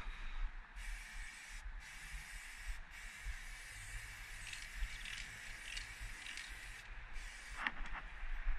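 Aerosol spray paint can hissing as black paint is sprayed onto a brick wall, in four bursts with short breaks, the longest lasting about four seconds. A short knock near the end.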